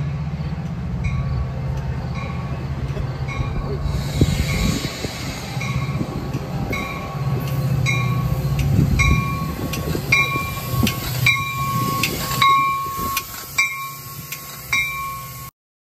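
Metra commuter train arriving, its cab car's warning bell ringing steadily, under the low rumble of the train. The bell strikes come a little less than twice a second and grow louder near the end as the car passes close by.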